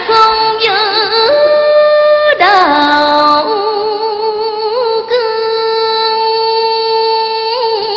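A woman singing in Vietnamese cải lương style, drawing out long notes with a wavering vibrato. The pitch steps up and down over the first few seconds, then she holds one long note through the second half.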